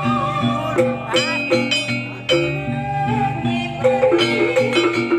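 Live jaranan accompaniment music: a traditional ensemble of drums and pitched percussion playing a fast repeating pattern, with a wavering melody line held above it.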